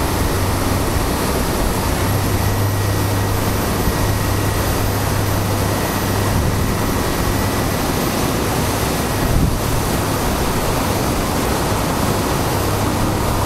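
Weir water roaring in steady white-water turbulence, with a fire boat's engine running as a low steady hum underneath, strongest from about two to six seconds in and again near the end.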